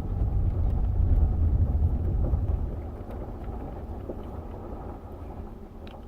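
2017 Chevy Cruze heard from inside the cabin while driving: a steady low rumble of engine and road noise that fades steadily from about three seconds in.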